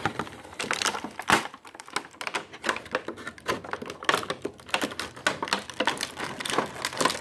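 Stiff clear plastic blister packaging crinkling and clicking irregularly as it is squeezed and flexed by hand to free a toy from its socket, with one sharp crack about a second in.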